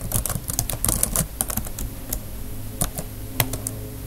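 Typing on a computer keyboard: runs of quick keystroke clicks with short pauses between words.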